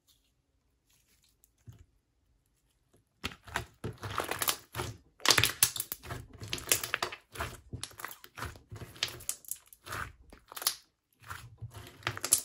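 Clear blue Elmer's Gue slime with music-note glitter mixed in, squeezed and kneaded by hand: starting about three seconds in, a dense run of sticky crackling pops and little crunches.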